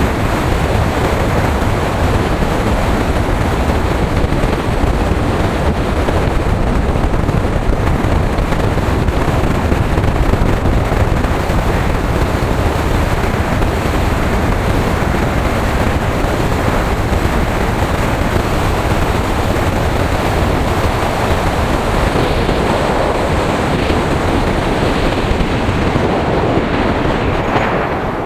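Wind buffeting an action camera's bare built-in microphone at riding speed: a loud, steady rush that swamps every other sound. It is the sign of a microphone with no wind protection.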